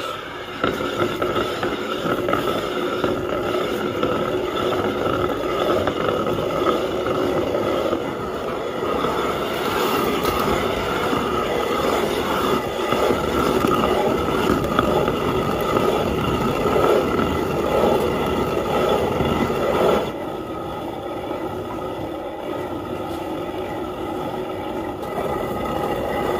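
Hand-turned stone quern (chakki) grinding roasted wheat coarsely: a continuous stone-on-stone grinding as the upper millstone is turned round by its wooden handle. It drops a little in level about twenty seconds in.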